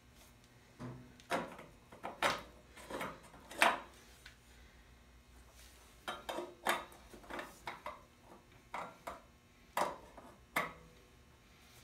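Steel exhaust header pipe knocking and scraping against a Predator 212cc engine's exhaust port and studs, about a dozen irregular metallic clinks, as the pipe's flange will not line up with the studs.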